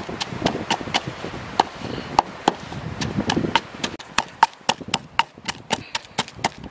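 Wooden pestle pounding chili paste in a wooden mortar: a run of sharp wood-on-wood knocks, uneven at first, then settling into a steady beat of about four a second.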